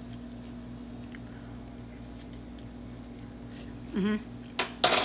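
Steady low hum in the room. A woman gives a short closed-mouth "mm" of approval about four seconds in while tasting chili, then a click and a short sharp clatter come near the end.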